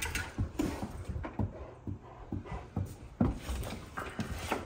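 Rottweilers sniffing and panting in short, irregular breaths, several a second.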